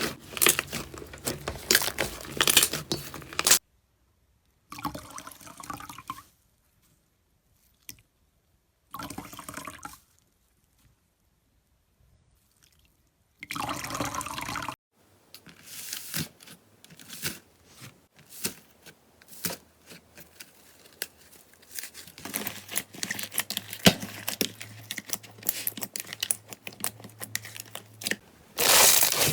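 Slime being squished and pressed, giving wet, sticky clicks, pops and crackles. It comes in short bursts broken by silent gaps in the first half, then as a dense run of clicks.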